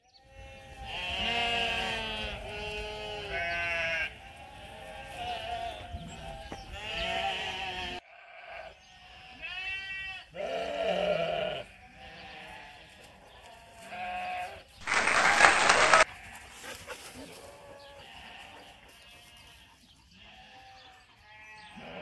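A flock of ewes bleating, many overlapping calls at different pitches coming and going. About fifteen seconds in, a loud rushing noise lasting about a second stands out above the bleating.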